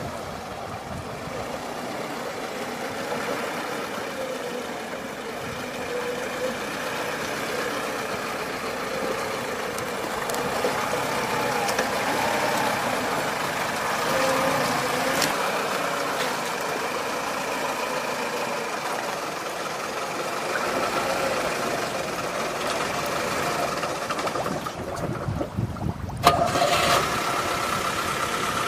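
Off-road vehicle's engine running, with the pitch rising and falling at times as it revs, and one sharp knock a little before the end.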